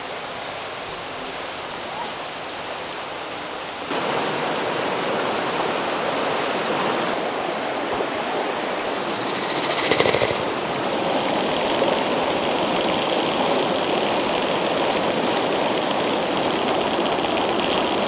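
Small river running over rocks: a steady rushing of water that gets louder about four seconds in.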